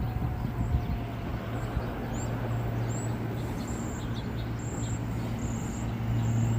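SEPTA Regional Rail train running at the station: a steady low hum over rumbling noise that grows louder near the end, with short high-pitched chirps above it.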